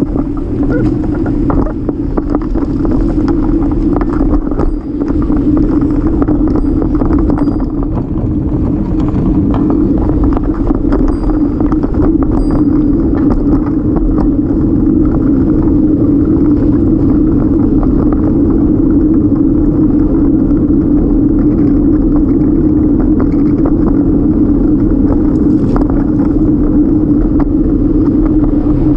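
Steady wind noise on the microphone of a moving bicycle, with tyre rumble from the pavement, picked up while riding. It is loud and even, a low rushing rumble.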